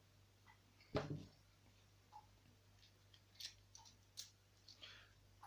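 Hands working the parts of a dismantled van ignition lock cylinder and its key: one sharp click about a second in, then a few faint light clicks and ticks.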